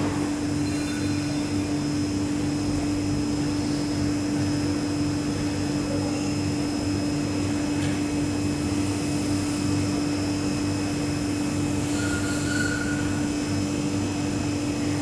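Steady hum of powered machinery, one strong low tone over an uneven throbbing rumble and a background hiss.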